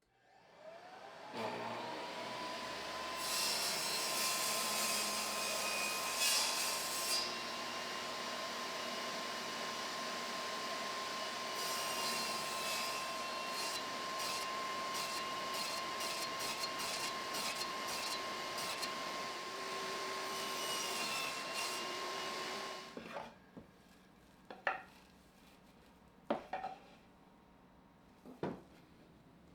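An electric woodworking power tool spins up with a rising whine, holds a steady pitch while cutting wood for about twenty seconds, then stops. A few sharp knocks follow.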